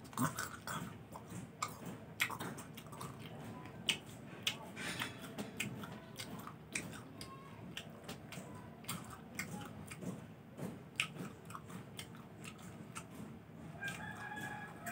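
A person chewing and biting into a lemon, seeds included, close to the microphone: irregular wet crunching and clicking. There is a short vocal sound near the end.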